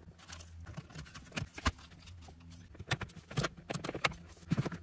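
Plastic wiring-harness connectors and wires being handled behind a car dashboard: a scatter of light, irregular clicks and taps as the plugs are pressed and fiddled with.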